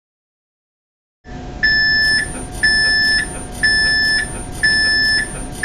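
Electronic signal beeper of an automatic cytology slide stainer (EMKO-stainer) sounding a loud, high, repeated beep. The beeps come about once a second, each just over half a second long, four in all, starting about a second and a half in. Underneath is a steady machine hum.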